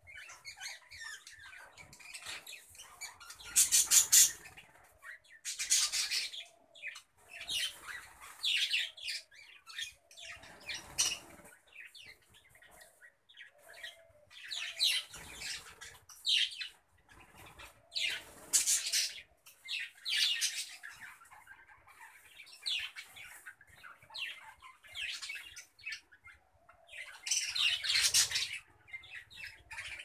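A flock of budgerigars chirping and chattering in repeated bursts every second or two, with wings fluttering now and then.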